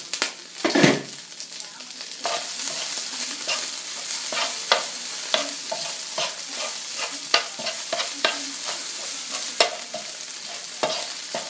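Chicken frying and sizzling in a hot pan while it is turned, with frequent clicks and knocks of metal tongs against the pan. The loudest knock comes about a second in, and the sizzle grows louder about two seconds in.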